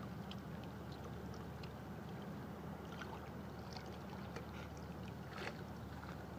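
Small waves lapping against the rocks at the harbour's edge: a soft, steady wash with a couple of small splashes, over a steady low hum.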